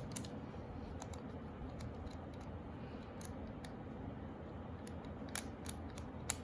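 Light, irregular clicks from a combination U lock being handled, about ten sharp ticks scattered over a faint hiss, two of them louder near the end.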